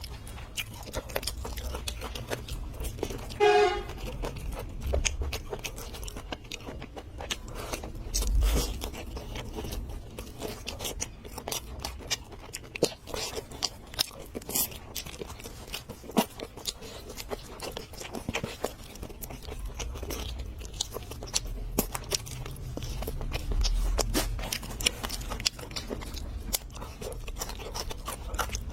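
Close-up eating sounds: continuous chewing and crunching with many small clicks. About three and a half seconds in, a brief pitched sound rises above it.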